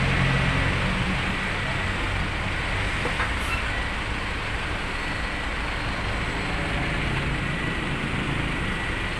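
Steady background noise with a low hum, holding an even level throughout.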